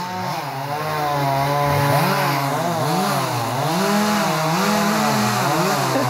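Two-stroke gas chainsaw cutting through a log, its engine pitch rising and falling as the chain bites and eases off under load.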